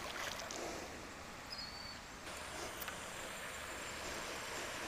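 Faint, steady outdoor background noise by the water, with a brief high chirp about a second and a half in.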